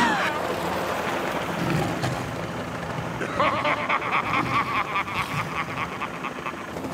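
Cartoon sound effect of a helicopter flying overhead: a steady engine and rotor rumble, joined about three seconds in by a fast, even rotor chop.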